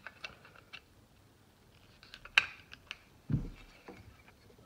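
Small metal clicks of a screwdriver snugging the screws of a Heeter POW folding knife, then the knife being worked by hand to test its freshly lubed pivot after reassembly: a sharp click about halfway through and a duller thump a second later.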